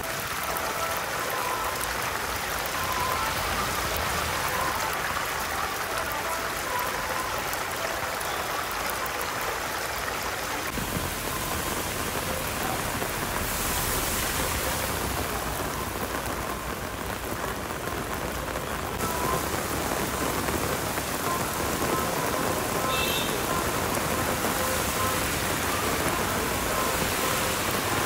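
Heavy rain pouring down onto a flooded road, a steady hiss of rain striking the water-covered surface.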